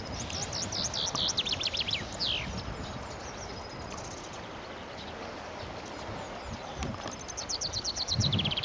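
A songbird singing two phrases, each a fast run of high notes falling in pitch and ending in a downward slur: one at the start and one near the end. Under it is a low wind rumble on the microphone.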